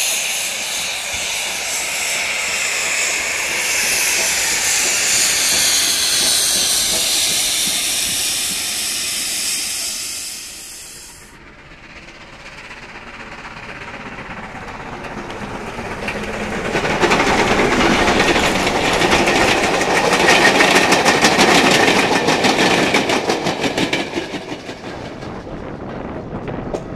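Steam locomotive letting off steam, a loud steady hiss that cuts off about 11 seconds in. Then a steam-hauled train approaches and runs past, the sound building up and loudest over several seconds in the second half before falling away.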